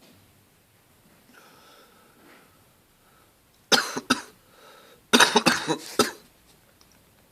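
A person coughing hard: two sharp coughs, then about a second later a quick run of several more harsh coughs.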